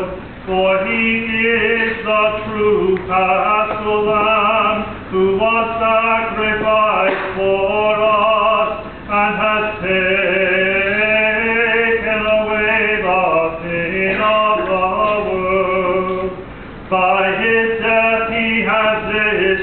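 A bishop's single male voice chanting the thanksgiving prayer of the service, unaccompanied, in long held phrases with short breaks between them.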